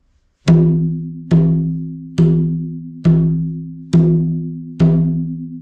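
Tubano hand drum struck six times with the hand, a steady stroke a little under once a second, each a low pitched note that rings on and fades: open tones, the hand lifted off the head so the sound keeps going.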